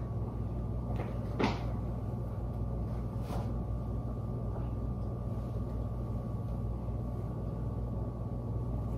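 Steady low hum of room tone with a faint steady whine, and two faint brief handling sounds about one and a half and three seconds in.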